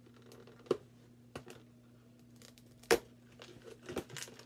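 Cardboard advent calendar door being pushed in and torn open along its perforations by fingers: a few separate short cardboard snaps and small tears, the loudest about three seconds in.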